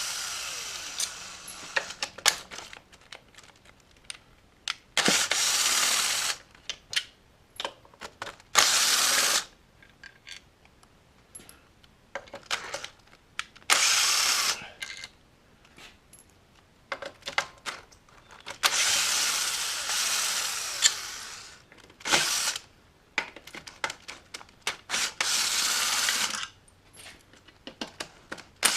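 A drill fitted with a 5/16 nut driver runs in short bursts of one to two seconds, about seven times, backing out bolts. Small clicks and clinks of metal come between the bursts.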